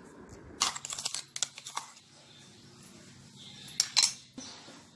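Metal spoon clinking and scraping against a stainless steel mixing bowl as a thick paste is spooned in. Scattered light taps come in the first two seconds, and the loudest clinks come about four seconds in.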